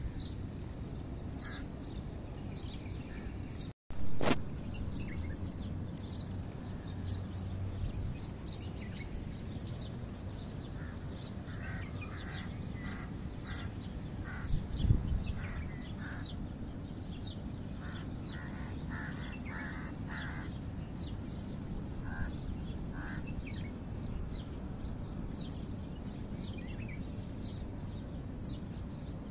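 Birds chirping and calling in the background over steady low ambient noise. A single sharp knock sounds about four seconds in, just after the sound cuts out for an instant, and a smaller one near the middle.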